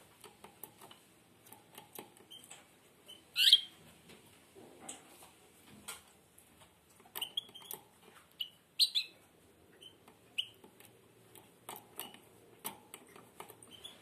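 Caged European goldfinch giving scattered short chirps, the loudest about three and a half seconds in and a cluster between seven and nine seconds, among faint clicks.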